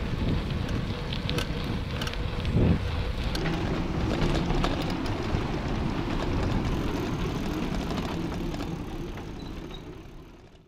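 Wind noise on a handlebar-mounted camera microphone as a bicycle rolls along at speed, with rattles and clicks from the bike over bumps. It fades out near the end.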